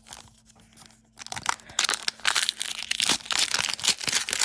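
Plastic foil wrapper of an Upper Deck hockey card pack crinkling and tearing as it is ripped open, a dense crackle starting about a second in.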